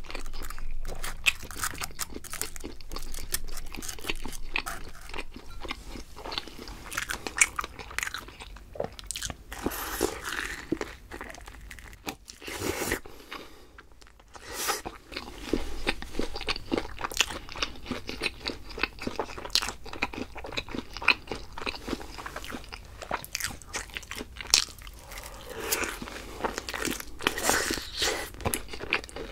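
Close-miked eating of crunchy fried food: steady bites, crunching and chewing, with a brief pause about halfway through.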